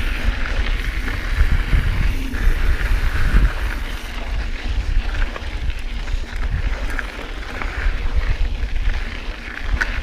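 Wind rumbling on the microphone of a mountain bike ride camera, with knobby tyres rolling over a dirt trail and scattered clicks and rattles from the bike.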